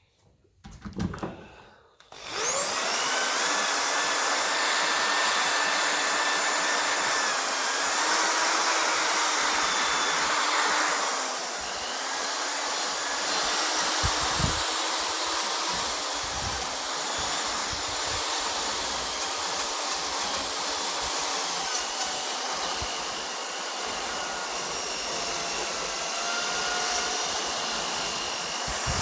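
A small power tool cleaning down the metal casing of an old Lucas dynamo: the motor spins up about two seconds in and runs with a steady high whine, its pitch dipping slightly a few times.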